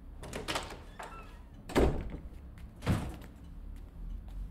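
Front door being opened and shut: two loud knocks about a second apart, the first the louder.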